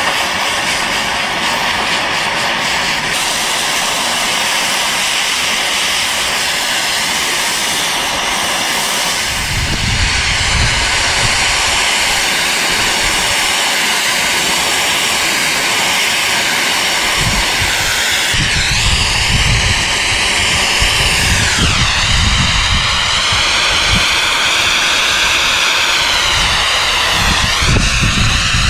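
Multiplaz 3500 handheld plasma torch burning with a loud, steady jet-like hiss while it heats cast-iron gear teeth for bronze brazing. In the second half its high whine sweeps down and back up a few times, over a low rumble.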